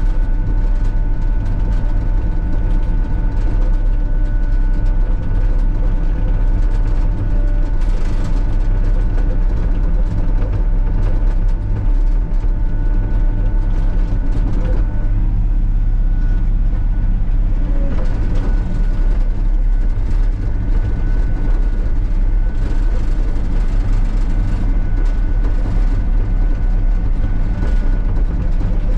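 Sany SY35U mini excavator running steadily while grading gravel: a deep, even engine drone with thin high whines over it, one of which drops out about halfway through.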